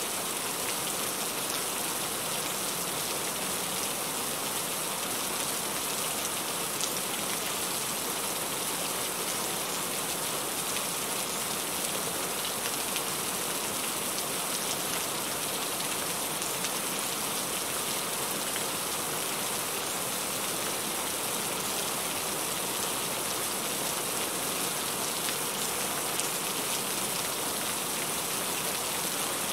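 Heavy rain falling steadily, an even hiss with scattered drop ticks on surfaces.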